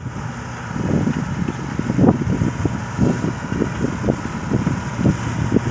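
1976 New Holland 1530 combine harvester running while it harvests, its engine and threshing machinery making a continuous hum with irregular low thuds several times a second.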